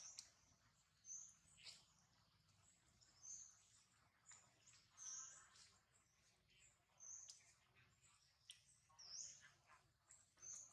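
Faint, short, high-pitched chirps, repeating every second or so, over otherwise near silence.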